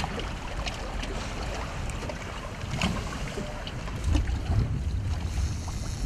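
Wind buffeting the microphone on an open boat, with choppy water lapping and slapping around the hull. The wind gusts harder about four seconds in.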